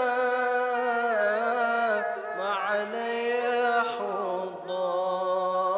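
Arabic sholawat, a devotional song in praise of the Prophet, sung slowly with a long ornamented melody that bends around each held syllable over a steady low held tone.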